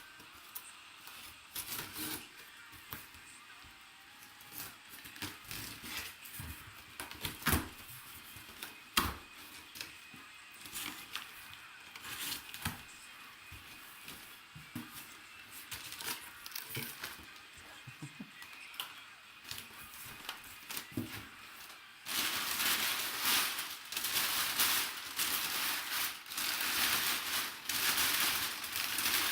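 A cardboard box being opened and handled, with scattered knocks and scrapes. About two-thirds in, packing paper starts crinkling loudly and steadily as it is pulled out.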